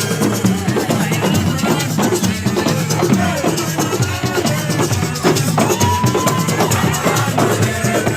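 Loud drum-led music: many quick drum strokes keep a fast rhythm, with voices over it.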